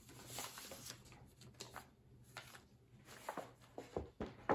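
Sheets of drawing paper being handled and flipped: soft, scattered paper rustles and slides, with a few sharper flicks near the end.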